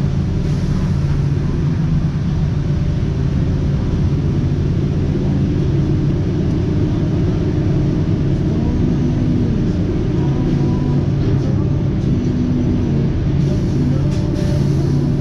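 Steady low rumble of a running engine, with faint voices behind it.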